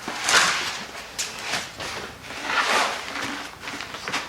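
Cardboard and plastic packaging rustling and scraping in two swells, with a few sharp clicks, as an e-bike is unpacked from its shipping box.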